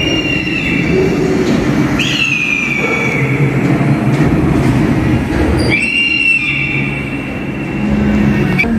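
Ride car rolling along its track with a steady low rumble. Its wheels squeal in high whines three times: briefly at the start, again about two seconds in, and a long squeal of about three seconds near the end.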